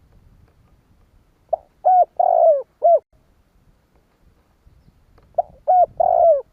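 Spotted dove cooing: two phrases of four coos about four seconds apart, each with a longer third note.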